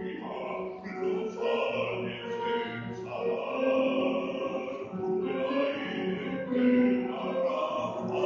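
Deep bass voice singing a Spanish zarzuela aria in operatic style, phrases of held notes, accompanied by a grand piano.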